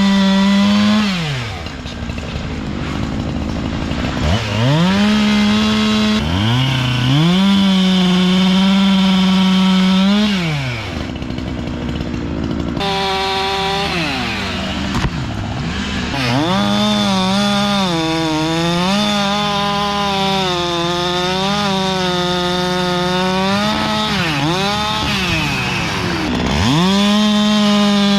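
Gas chainsaw cutting up a felled oak's limbs and logs. It is revved to full throttle and dropped back to idle several times, and the pitch sags and wavers under load during the longer cut in the second half.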